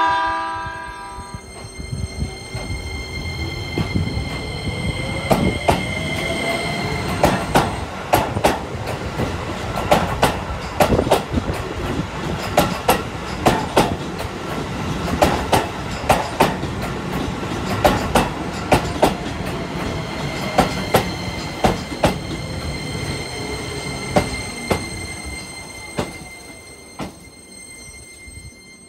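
Keisei 3000-series electric train pulling away: the tail of its horn in the first second or so, then the traction motors' whine rising in pitch as it accelerates. Over this runs a steady clickety-clack of wheels over rail joints and points, fading near the end as the train moves off.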